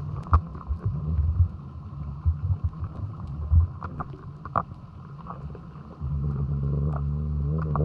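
Underwater recording from a GoPro in its housing: irregular knocks and bumps over a low watery rumble. About six seconds in, a steady low droning hum starts and holds.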